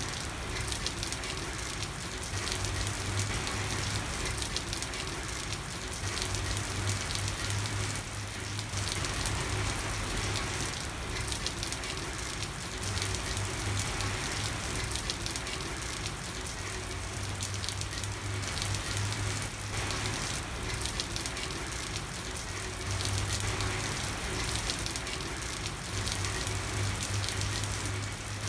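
Steady, heavy rain falling on a street, a dense patter of drops without a break. A low hum underneath comes and goes every few seconds.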